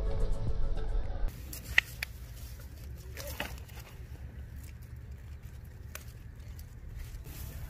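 Background music that cuts off about a second in, giving way to outdoor sound: a low steady wind rumble on the microphone and a few sharp clicks and rustles as raspberry canes are handled and a berry is picked. The loudest click comes about two seconds in.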